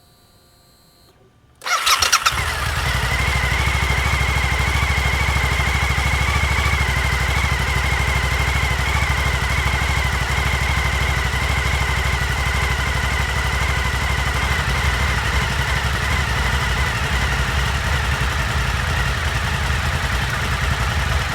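Suzuki SV1000's 1,000 cc V-twin engine being started about two seconds in: a brief crank, then it catches and runs steadily.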